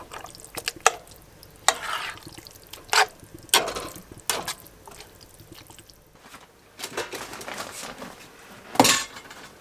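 A spoon stirring a big pot of thick enchilada filling, scraping through it and clacking against the pot several times, the loudest knock near the end.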